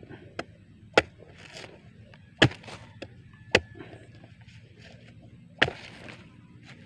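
Bolo machete chopping into a young coconut's husk: about six sharp chops at uneven intervals, four of them loud.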